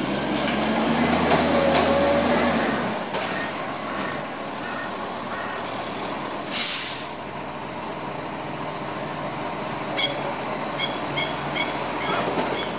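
Iveco recycling truck's diesel engine running as it pulls up, loudest in the first three seconds, with a short sharp hiss of its air brakes about six seconds in. Near the end a masked lapwing calls in a quick regular series of sharp notes, about two a second.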